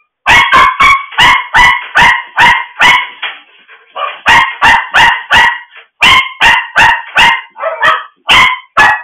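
A dog barking loudly in quick, sharp barks, about three a second. The barks start suddenly, pause briefly about three seconds in, then carry on.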